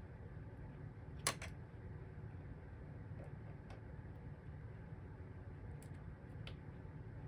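A sharp click about a second in, then a few faint ticks, over a low steady hum: a small screwdriver and screw working as a sewing machine's faceplate is fastened back on.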